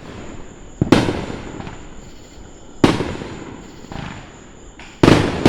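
Fireworks exploding: three loud bangs about two seconds apart, each trailing off over a second or so, with fainter pops between them.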